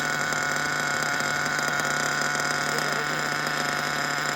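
Nitro glow engine of a Kyosho Inferno NEO ST 3.0 RC truck idling steadily, with an even, unchanging pitch.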